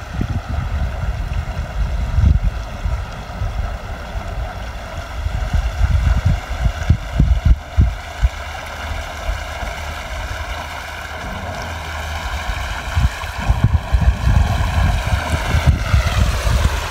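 Small remote-control boat's electric motor whining steadily as it runs back across the water, its pitch dropping near the end as it slows. Wind buffets the microphone throughout.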